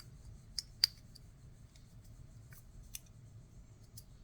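A few faint, sharp clicks of small parts of a TSA luggage lock being handled and fitted by hand, the sharpest just under a second in.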